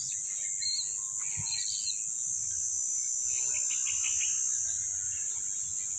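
Steady high-pitched insect chorus, with a few faint short chirps over it in the first couple of seconds.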